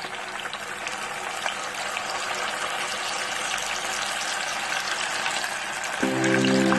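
Tofu deep-frying in hot cooking oil in a pot: a steady sizzle with fine crackling spatter that grows slowly louder. Music comes in near the end.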